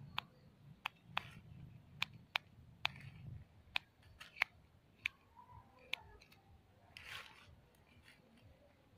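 Dry fallen leaves crackling in sharp, irregular snaps as a small kitten shifts and paws among them, with a longer rustle about seven seconds in.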